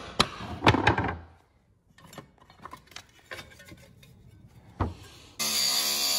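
Sharp knocks and clatter of work on a door threshold, then about five seconds in a handheld power tool starts cutting into the threshold, running loud and steady with a whine.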